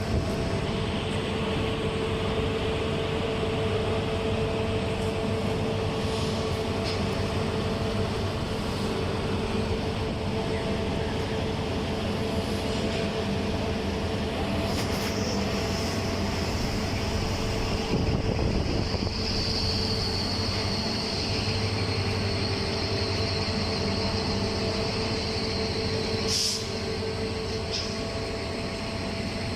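Steady drone of heavy machinery with a constant low hum. A thin high whine joins in for several seconds about two-thirds of the way through.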